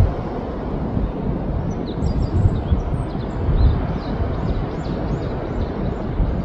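Beach ambience: a steady, fluctuating low noise of waves and wind. From about two seconds in, faint high chirps repeat over it.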